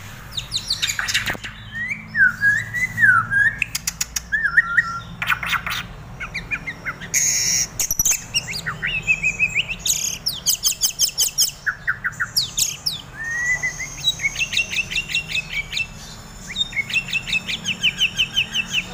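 White-rumped shama (murai batu) singing in its cage: sliding whistled phrases, then rapid trains of repeated sharp notes, with a couple of short harsh noisy bursts in between. The keeper presents this as the song of a shama in over-breeding condition ('over birahi'), which he puts down to too much extra food such as crickets.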